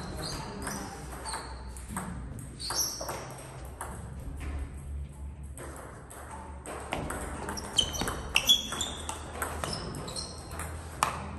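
Table tennis ball striking the table and rubber paddles: a few bounces before the serve, then a rally with a quick run of sharp pings in the second half.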